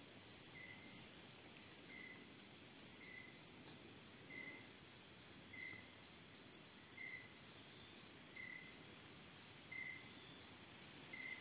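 Night insects chirping in an even rhythm: a high chirp about twice a second that slowly grows fainter, with a softer, lower chirp repeating a little less than once a second.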